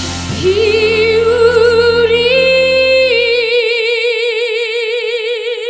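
A woman singing a trot ballad, holding one long note with wide vibrato over band accompaniment. The note lifts briefly near the middle and settles back. The band drops out about three and a half seconds in, and the voice carries on alone.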